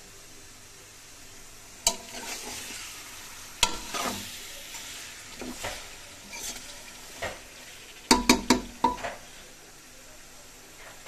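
Steel spoon stirring chicken pieces frying in a metal pot, scraping and clinking against the pot, with sizzling oil as the chicken is browned. Sharp clinks come about two and four seconds in, and a quick run of four about eight seconds in is the loudest.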